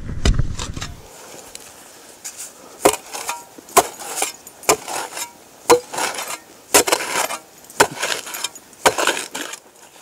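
Shovel blade chopping into frozen, stony ground, about one sharp strike a second, each followed by a short scrape of soil and stones. A low rumble fills the first second.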